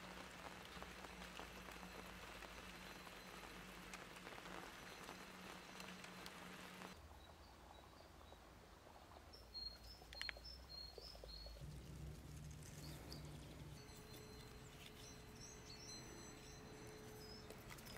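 Faint outdoor ambience, with small birds chirping now and then in short high calls, mostly in the second half. A low steady hum lies under the first few seconds.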